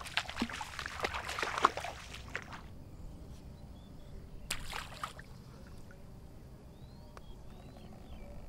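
Water sloshing and splashing, busy for about the first two and a half seconds, with one more brief splash a little before halfway. After that there is only a low steady background with a few faint, short high chirps.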